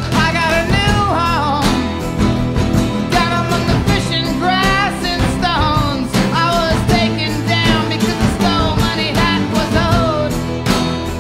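Background music: a song with a voice singing over guitar and a steady band accompaniment.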